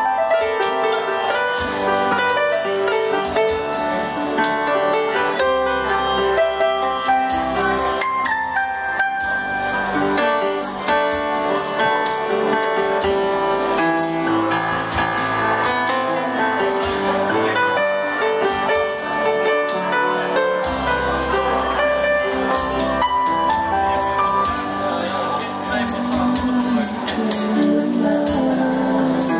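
Live music from a stage keyboard: melody and chords played over a steady beat. Near the end a man's voice comes in, singing into the microphone.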